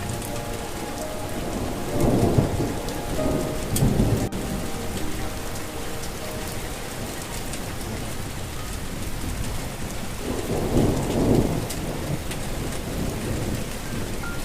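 Steady heavy rain falling, with rumbles of thunder swelling a couple of seconds in and again past the middle. A soft melody plays faintly underneath.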